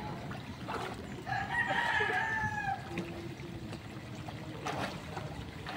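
A rooster crowing once, a call about a second and a half long that falls away at the end, over the light wash of water from a swimmer in a pool.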